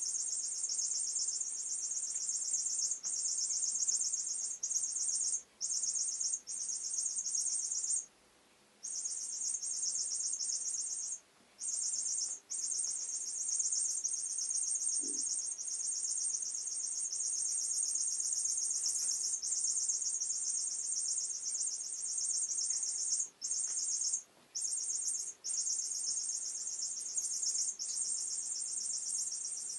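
Squeaking cat teaser wand toy giving off a continuous high-pitched chirping sound, broken by several short pauses.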